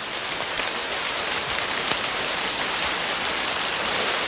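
Steady rain falling on rainforest foliage: an even hiss with a few faint drop ticks.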